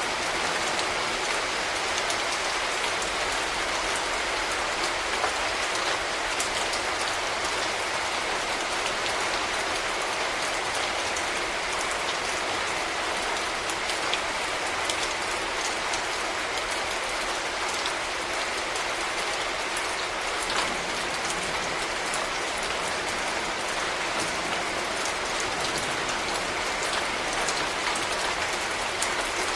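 Steady rain falling, an even hiss with scattered individual drop taps.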